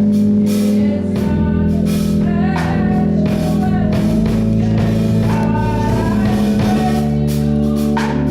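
Gospel song: a voice singing long, wavering notes over held instrumental chords.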